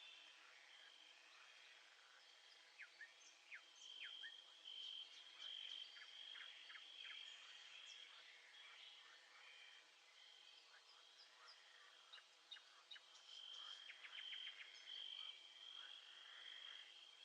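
Faint nature ambience: birds chirping in clusters of short, quick downward calls over a steady high insect trill.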